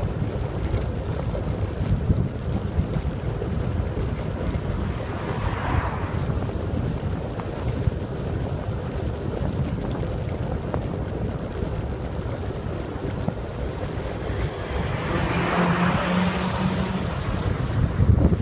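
Steady road rumble and wind noise from a velomobile rolling on asphalt at about 35 km/h. About fifteen seconds in, a car overtakes with a swelling rush of noise and a low engine hum that fades as it pulls ahead.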